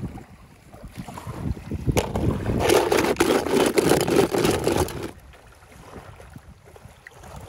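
Water splashing and sloshing, loudest for about three seconds in the middle, with short knocks through it.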